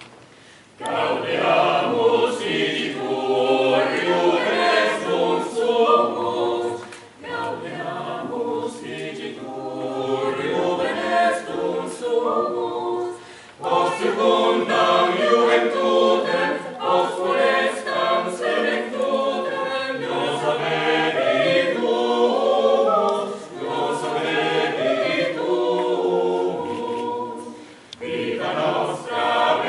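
Mixed-voice choir singing a cappella, coming in about a second in and going on in phrases with short breaks between them.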